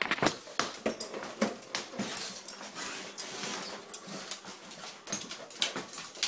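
A pug moving about on a wooden floor, with a string of irregular sharp clicks.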